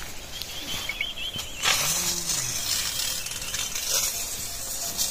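Aluminium pressure cooker on a wood fire venting steam: a steady hiss comes in suddenly about a second and a half in and keeps going.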